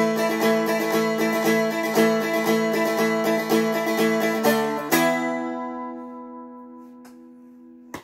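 Four-string Seagull Merlin M4 stick dulcimer strummed in a steady rhythm of about four strokes a second. About five seconds in it ends on a last strummed chord that is left to ring and fade, then is damped right at the end.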